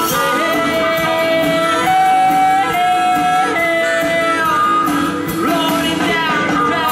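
Live blues band playing a medium-tempo rock-and-roll number on electric guitars and drums, with a voice singing long held notes over it.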